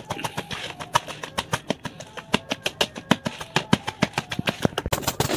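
A drinking glass knocking against the dish again and again as roasted potato, tomato and aubergine are mashed for chokha: several sharp, irregular knocks a second.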